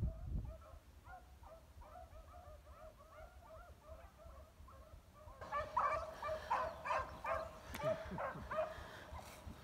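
Pack of beagles baying on a scent trail, a run of repeated high calls overlapping one another. The baying is faint at first and grows louder and denser a little past halfway.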